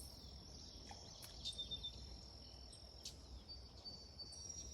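Insects trilling in one steady, high-pitched drone, with a few short chirps and some faint clicks over a low background rumble.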